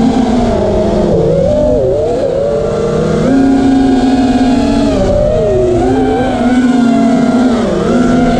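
FPV quadcopter's brushless motors and propellers whining, the pitch rising and falling with the throttle, with deep dips about two seconds in and again about five and a half seconds in.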